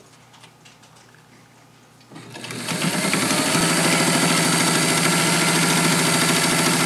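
Kenmore zigzag sewing machine starting up about two seconds in, after a quiet spell with a few faint ticks. It then runs steadily at speed, sewing a zigzag stitch.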